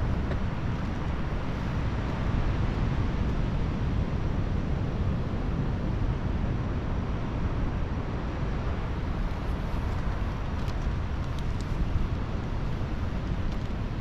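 Wind buffeting the microphone outdoors: a steady low rumble.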